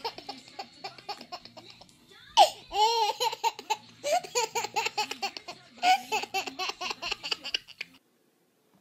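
A baby laughing hard in long runs of quick belly laughs, with a loud rising-and-falling squeal about two and a half seconds in. It cuts off suddenly near the end.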